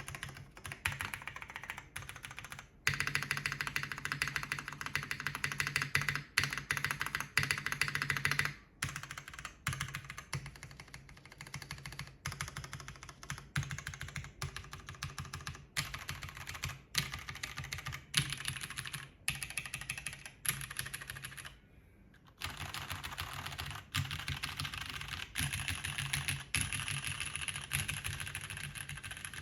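Typing on a JTD Ovinnik TKL mechanical keyboard: top-mounted 5052 aluminium plate, hotswap PCB, MX Purple switches and GMK keycaps. Key presses come in a quick continuous stream, with a louder, faster run a few seconds in and a short pause near the end.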